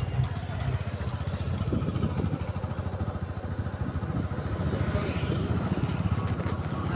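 Motorcycle engine running steadily while riding, with a low, fast-pulsing rumble.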